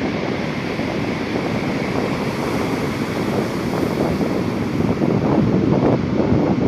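Large ocean waves breaking as heavy surf, with wind buffeting the microphone; the surf grows a little louder near the end.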